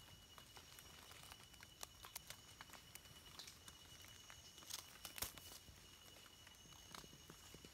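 Faint crackling and rustling of dry leaf litter as hands pick and handle wild mushrooms on the forest floor, with scattered small clicks and a sharper click about five seconds in.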